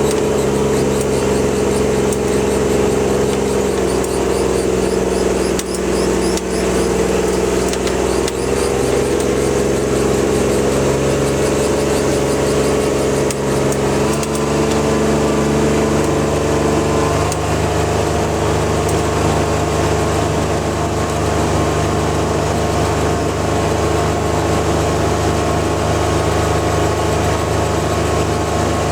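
Utility vehicle (RTV) engine running steadily while driving, with its pitch stepping down about halfway through and shifting again a few seconds later.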